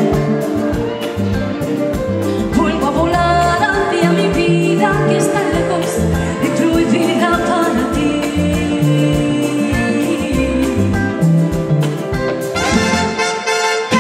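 A woman singing live into a microphone, backed by a dance orchestra with percussion, keyboards and a steady pulsing bass line. About 12.5 s in, the band's sound fills out.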